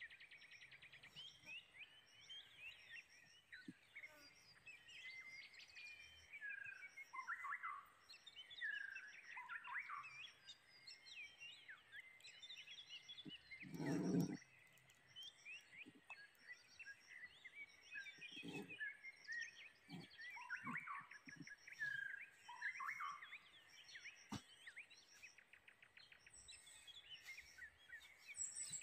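Faint birdsong: many short chirps and whistled calls overlapping, with a faint high-pitched note pulsing steadily behind them. A brief rustle or knock stands out about fourteen seconds in.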